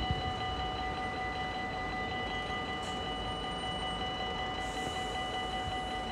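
Dutch level-crossing warning bell ringing steadily, a cluster of even electronic tones, while the crossing is still active and its barriers lift. Under it is a low, even rumble.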